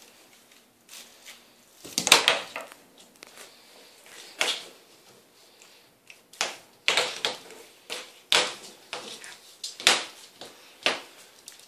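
Irregular scraping and scuffling: a hand brush's bristles rubbed and pushed against a French bulldog puppy and the laminate floor as it grabs at the brush, with short bursts coming faster toward the end.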